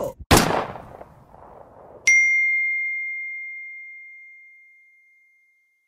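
An edited-in message-notification chime: a single bright ding struck about two seconds in, one clear high tone that rings and slowly dies away over about three seconds. Just before it, a short burst of noise fades out within a second.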